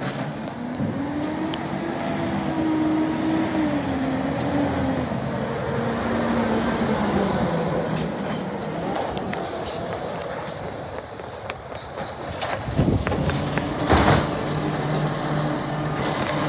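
Diesel engine of a side-loader recycling garbage truck driving up the street and passing close, its pitch rising and falling with the throttle and gear changes. Later it runs steadily, with several sharp knocks and clanks.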